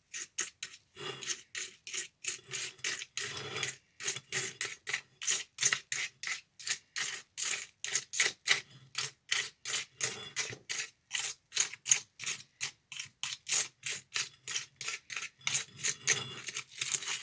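Palette knife scraping a stiff, gritty cement-and-sand mix across a plastic tile mold in quick, even strokes, about three or four a second, as the mix is spread flat.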